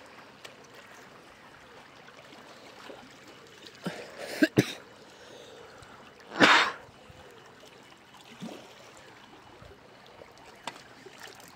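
Faint lapping of small waves against the shore rocks, broken by a person clearing the throat about four seconds in and a short loud cough about six and a half seconds in.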